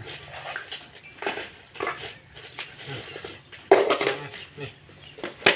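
Food bowls knocking and scraping on a tiled floor as a crowd of cats and dogs eat from them. There is a loud clatter a little under four seconds in, when a metal bowl is set down on the tiles, and a sharp knock near the end.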